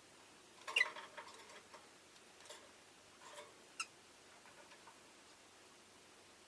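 Rosy-faced lovebird making a few short clicks and brief chirps, the loudest about a second in, with smaller ones over the next three seconds.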